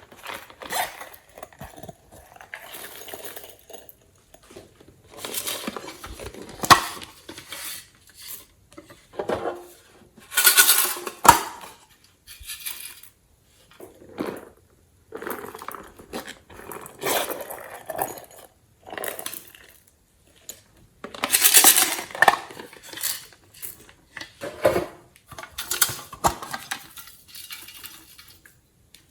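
Glossy slime being mixed and handled, in irregular bursts of clicky, crackling noise with short pauses between them.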